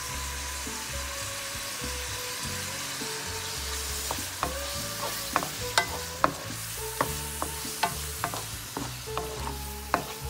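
Mixed vegetables sizzling in oil in a wok while a spatula stirs them, with sharp clicks and knocks of the spatula against the pan from about four seconds in.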